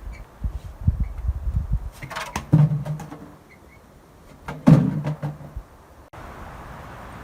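Low rumbling thumps, then two heavy slams about two seconds apart, each with a short low ring. The sound cuts off suddenly a little before the end and gives way to a steady hiss.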